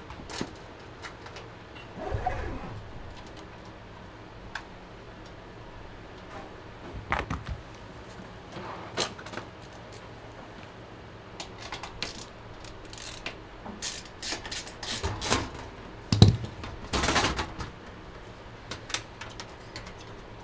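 Scattered clicks, taps and rattles of hands handling and refitting the panels of a Fractal North steel PC case, busier toward the end, with the loudest knock about sixteen seconds in.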